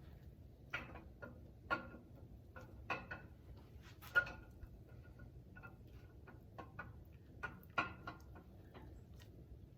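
Irregular metallic clinks and knocks, about a dozen, as a camshaft is worked into an LSX 408 stroker engine block, the steel lobes bumping the cam bores. The loudest clink comes about four seconds in, with another strong one near eight seconds.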